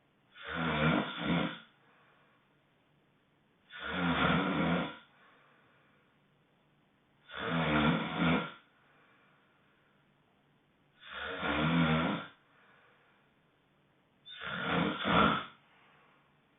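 Honking snores, five of them about every three and a half seconds, each lasting about a second, with near quiet between breaths.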